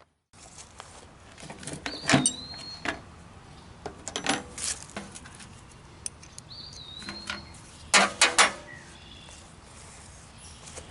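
Scattered knocks and clinks of tools and parts being handled, the loudest cluster about eight seconds in, with a bird chirping twice.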